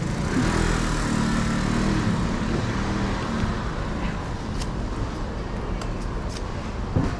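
A motor vehicle engine running past for the first few seconds, low and steady, then fading into street background noise. A few light clicks and knocks come later.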